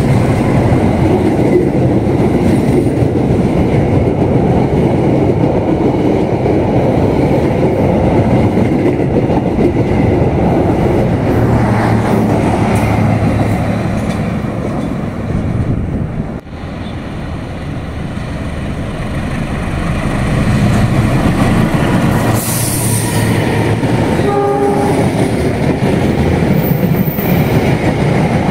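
A train running along the rails with a loud, steady rumble of wheels that eases about halfway through and builds again. A brief horn note sounds near the end.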